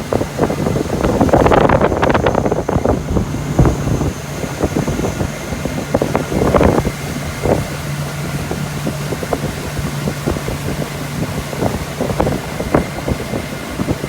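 Motorboat engine running with a steady low drone, under gusty wind buffeting the microphone, heaviest in the first few seconds.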